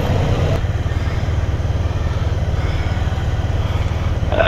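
Motorcycle engine running steadily at road speed, picked up by a bike-mounted microphone along with wind and road noise.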